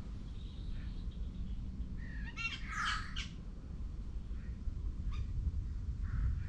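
A bird gives a short burst of harsh, rapidly repeated squawking calls about two to three seconds in, with a few fainter calls later, over a steady low rumble.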